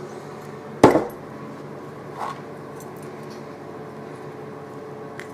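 A mug set down on a table with one sharp knock about a second in, followed by a softer knock of handling it.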